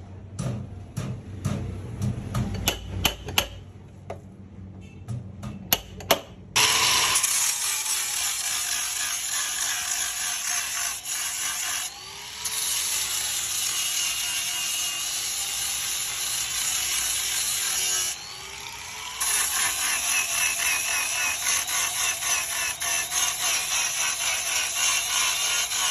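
Workshop tool sounds: a run of sharp taps, then a loud, rapidly ticking mechanical noise that starts about six seconds in and drops out briefly twice.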